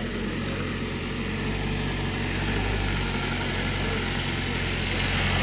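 Mahindra Bolero pickup's diesel engine running at low revs as the truck crawls up a muddy, rutted track, a steady low hum that grows gradually louder as it approaches.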